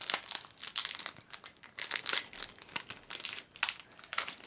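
Foil booster-pack wrapper crinkling as it is handled, in quick irregular bursts.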